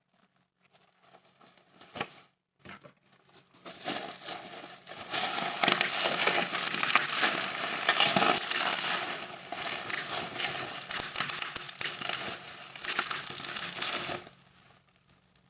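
Dense crinkling and crackling of packaging being handled and crushed, starting after a single click about two seconds in and cutting off sharply near the end.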